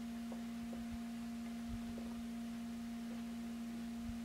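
Steady electrical hum with a fainter, higher tone above it, and a few faint small clicks of hobby-grade RC axle parts and a tool being handled.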